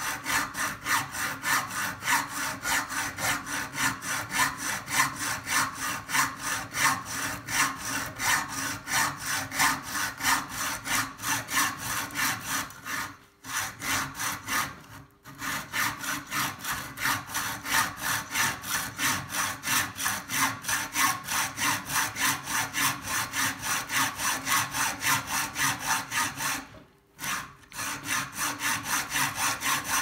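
Hacksaw cutting through a metal bicycle seat post held in a vice, in steady back-and-forth strokes of about two to three a second. The sawing stops briefly a couple of times about halfway through and once more near the end.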